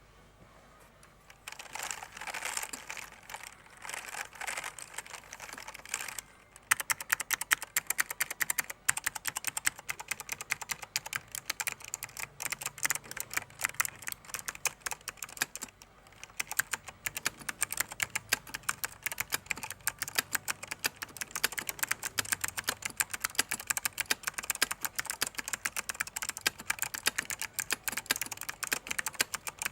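Mechanical keyboard with clicky SKCM White Alps switches being typed on, the keyboard set on a towel that damps the sound. It starts softly and becomes a fast, continuous run of keystroke clicks about six seconds in.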